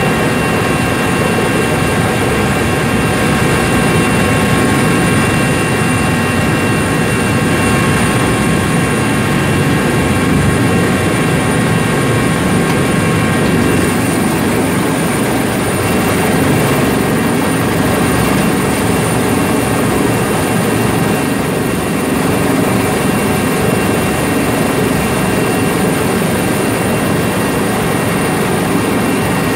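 Helicopter engine and rotor running steadily, heard from inside the cabin: a loud, even rush of noise with thin, steady high whines over it, which shift slightly about halfway through.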